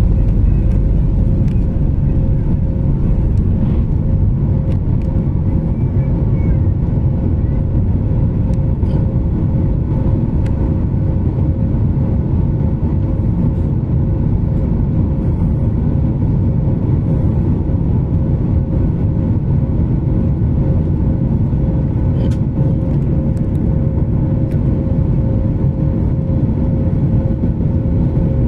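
Boeing 737 MAX 8's CFM LEAP-1B turbofan engines at takeoff power, heard inside the cabin beside the wing: a loud, steady low rush with a constant hum running through it, through the end of the takeoff roll, lift-off and initial climb.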